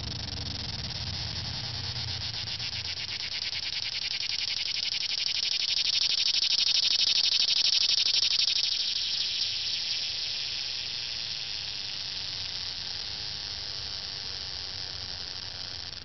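Cicada singing at close range: a high, pulsing buzz that swells to its loudest about halfway through, then slowly fades.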